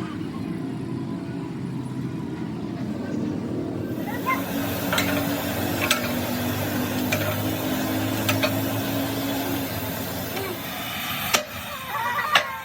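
Sharp hammer blows on metal, roughly one a second, over a steady low machine hum.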